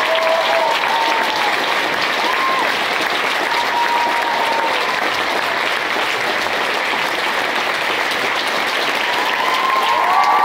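Theatre audience applauding: dense, steady clapping from a full house.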